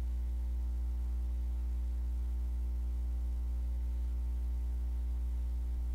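Steady low electrical mains hum with a faint buzz of overtones, unchanging throughout.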